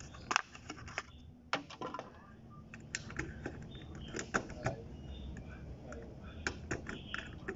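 Scattered, irregular light clicks and taps from handwork on a foil-faced panel and its metal seam, over a low background hum.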